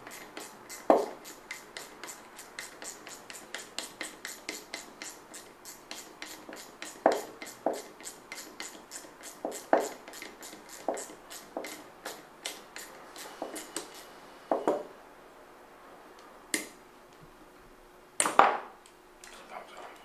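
Even metallic clicking, about four a second, as the parking-brake screw is turned out of a Ford Mustang Cobra rear brake caliper, with louder knocks of metal parts now and then. The clicking stops about two-thirds of the way through, and a few separate knocks follow.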